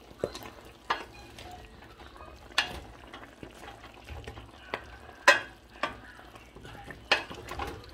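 Pork belly and small potatoes being stirred in a stainless steel pan over a low sizzle. A utensil and the pieces knock against the pan irregularly, about eight sharp knocks, the loudest a little past halfway.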